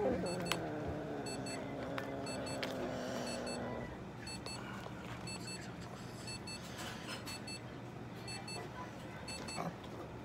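A cat yowling in one long drawn-out cry that falls in pitch and then holds steady for about four seconds before stopping. Short electronic beeps repeat in pairs in the background.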